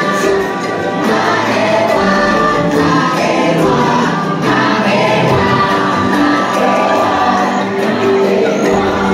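Choral music from the boat ride's soundtrack: a choir singing long held notes over instrumental accompaniment.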